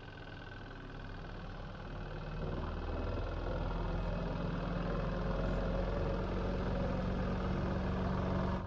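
Washing machine running, a steady motor hum that builds up over the first few seconds and then holds even.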